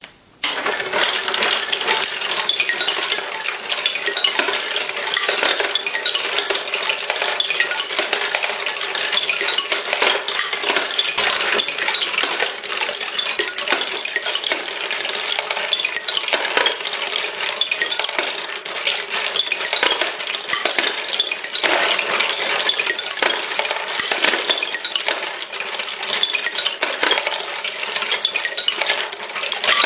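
Homemade wooden marble machine running: a dense, steady clatter of glass marbles clicking against one another and rolling down its wooden zigzag ramps and lift.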